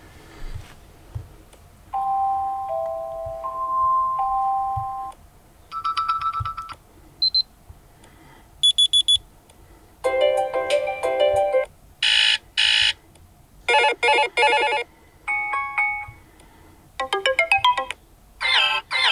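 BlackView BV6600E smartphone alarm tones previewed one after another: about ten short chimes, beep patterns and electronic melodies, each lasting one to three seconds, with brief gaps between them. The first, about two seconds in, is a slow chime of a few held notes; later ones are quicker, higher beeping and pulsing patterns.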